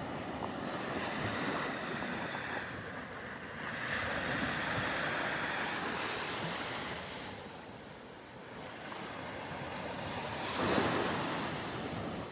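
Small surf of 1 to 2 foot waves breaking and washing up the beach, the rush swelling and easing every few seconds, with some wind on the microphone.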